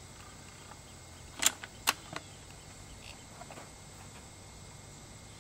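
Two sharp clicks about half a second apart, with a few fainter ticks after, over a faint steady high tone.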